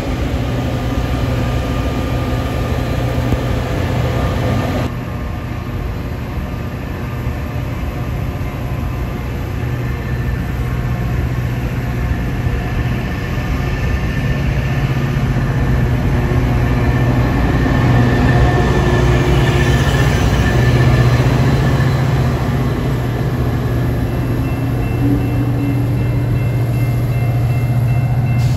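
Metra commuter train of stainless-steel bilevel cars rolling past at close range, wheels rumbling on the rails over a steady low drone from its diesel locomotive, growing louder partway through.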